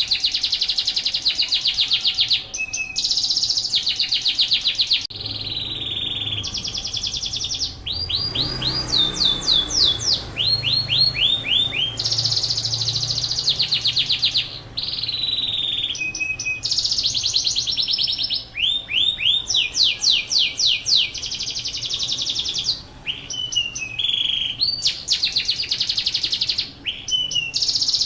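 Yorkshire canary singing continuously in rapid trills of repeated notes, changing to a new trill every second or two, some made of fast downward-sweeping notes.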